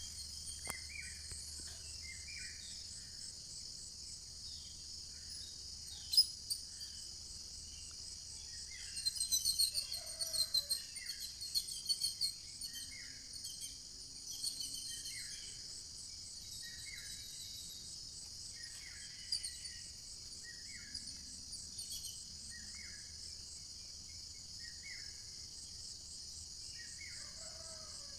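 Steady, high-pitched insect chorus with birds chirping over it. A short call repeats about once a second, and a brief flurry of louder chirps comes about a third of the way in.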